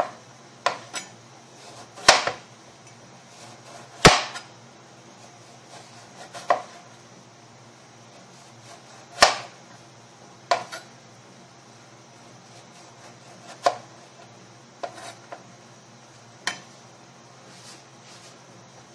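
Kitchen knife slicing through eggplant, each cut ending in a sharp knock of the blade on a plastic cutting board. About a dozen separate knocks come at an uneven pace, one to three seconds apart.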